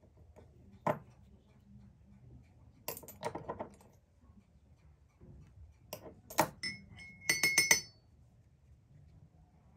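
A watercolour brush clinking and tapping against a water cup: scattered light taps, then a quick run of ringing clinks near the end.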